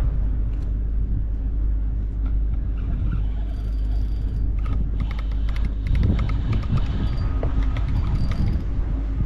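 A spinning reel wound in short spells with light clicking while a hooked salmon is played on a bent rod, over a steady low rumble.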